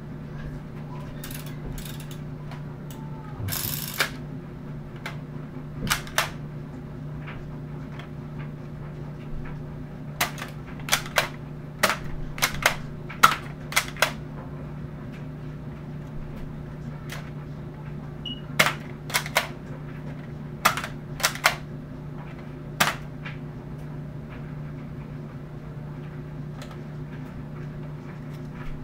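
Nerf blaster being fired at a wall, with foam darts striking and sticking in it: sharp clicks and snaps in scattered clusters, some in quick runs, over a steady low hum.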